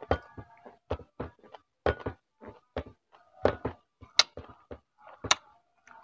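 Close-up eating sounds: irregular short clicks, smacks and taps, about two or three a second, from chewing fried fish and rice with the mouth open and fingers picking food off a plate.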